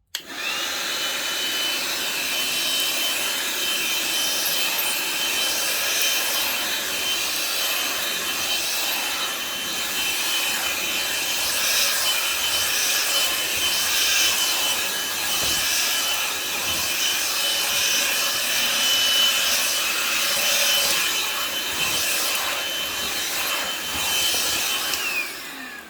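Einhell 18 V cordless handheld vacuum cleaner running, a steady high whine over a rushing hiss, while its nozzle scrapes back and forth over carpet sucking up dirt. The motor spins up at the start and winds down near the end.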